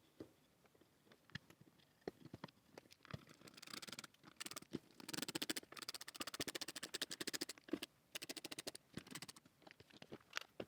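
Wooden clamp parts and hand tools being handled on a workbench: a few scattered knocks, then several seconds of rapid, evenly spaced clicking, about ten a second.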